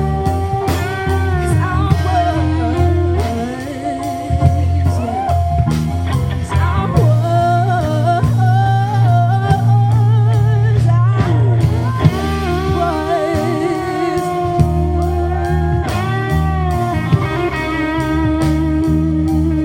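Live R&B song: a woman singing held, wavering notes with vibrato over a steady backing of deep bass and guitar.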